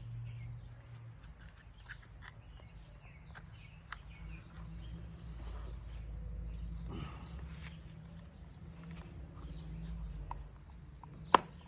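Light clicks and handling noises of a new fuel filter being fitted into a string trimmer's fuel line, with one sharp click near the end, over faint outdoor background with a pulsing high chirping.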